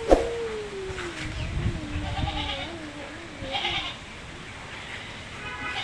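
Small livestock bleating: a sharp click at the start, then one long, wavering bleat that slowly falls in pitch for about three seconds, with shorter bleats overlapping it and another bleat near the end.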